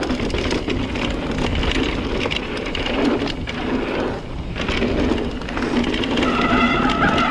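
Mountain bike descending a packed-dirt trail at speed: wind rushing on the microphone, tyres running on dirt and the bike rattling over bumps. A short high whine comes in near the end.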